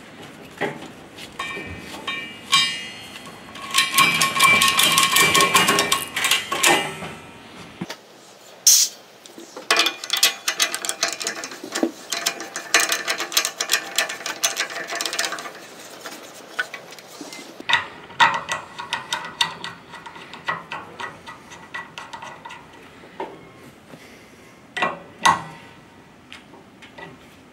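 A ratchet strap being cranked tight around an argon cylinder, its pawl clicking in quick runs. Then comes metallic clicking and scraping as a gas regulator is threaded onto the cylinder valve and snugged up with a wrench.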